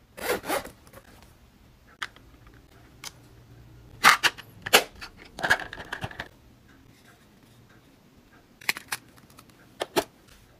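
A zippered makeup case being handled and packed: short scratchy, zipper-like bursts and light clicks and knocks as small plastic makeup cases are set inside it.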